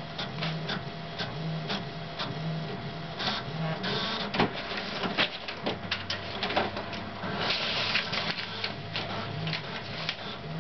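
Desktop fax machine printing a page: its mechanism whirs in regular repeating passes, with many small clicks and a few short higher whirs, and a low steady motor hum in the second half.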